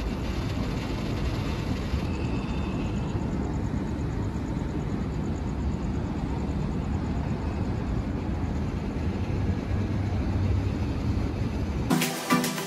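Steady low rumble of a vehicle in motion. Music cuts in abruptly near the end.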